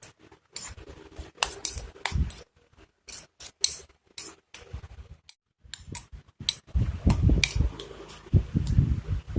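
A utensil clinking and scraping against a bowl as minced pork is stirred into its seasoning: irregular sharp clicks, with duller thuds in the second half.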